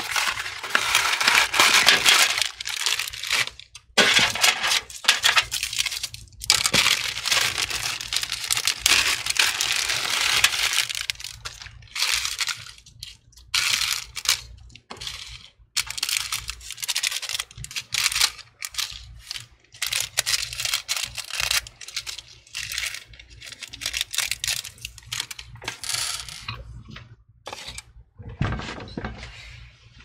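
Small metal screws clicking and rattling in a small cardboard box as it is opened and handled, with cardboard rustling; a dense, irregular clatter with brief pauses.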